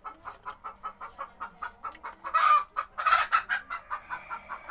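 A chicken clucking in a fast, even run of short clucks, with two louder squawks about halfway through.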